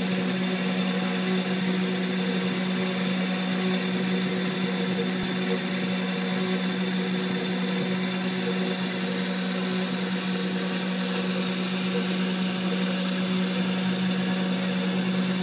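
CNC milling machine's spindle running steadily as a tapered cutter mills a raised logo into a metal branding-iron blank: a constant hum with a hiss of cutting over it.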